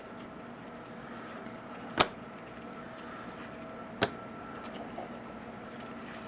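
Trading-card pack being handled: two short, sharp clicks about two and four seconds in, over a faint steady hum.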